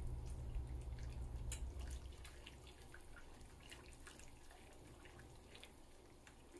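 Wire whisk stirring tempered egg yolks into hot chicken broth in a skillet: faint liquid sloshing with light clicks of the wires against the pan. A low hum fades out about two seconds in.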